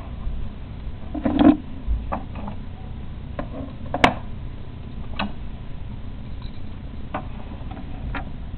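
A few scattered light clicks and taps at irregular intervals, the sharpest about four seconds in.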